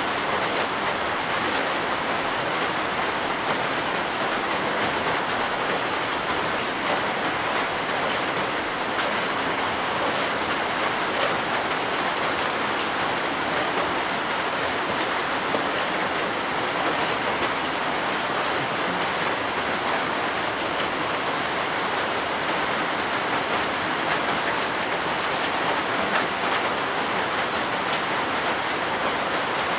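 Steady, even rushing hiss with faint scattered ticks.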